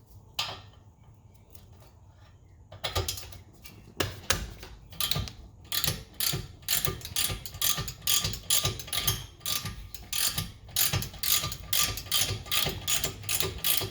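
Hand ratchet wrench clicking in quick repeated strokes as it backs out a rear brake caliper bolt, starting about three seconds in.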